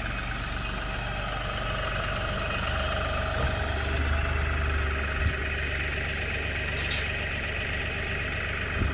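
A vehicle engine running steadily at idle. Its low hum grows deeper and louder from about three seconds in until about seven seconds, with a few light knocks.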